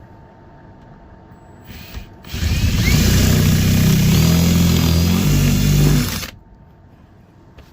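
A power drill runs for about four seconds, its motor speed changing a few times, then stops.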